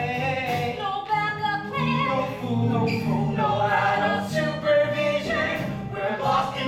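Several voices singing together in harmony over musical accompaniment: a number from a stage musical.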